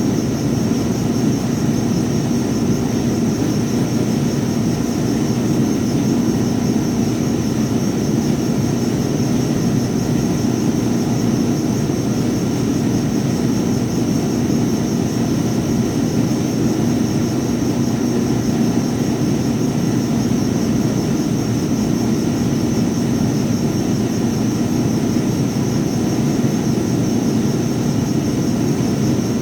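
Electric power sander running steadily without a break.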